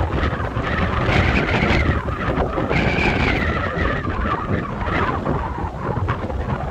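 Strong wind buffeting the microphone in a continuous rumbling rush, with a wavering whistle through the middle.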